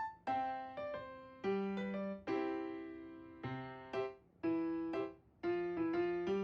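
Background music: a gentle electric piano melody of separate struck notes, each fading away.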